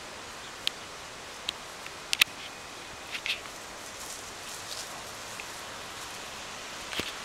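Outdoor rustling and hiss with scattered sharp clicks and ticks, the loudest a quick double click about two seconds in and another click near the end.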